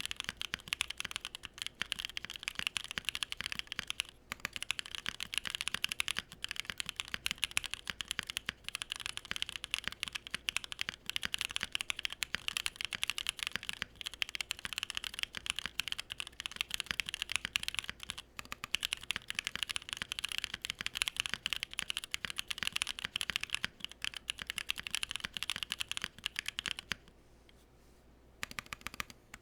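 Steady fast typing on a custom mechanical keyboard, a Bakeneko with Durock POM switches on an aluminium plate and PBT keycaps: dense, irregular keystroke clicks that stop for about two seconds near the end, then start again.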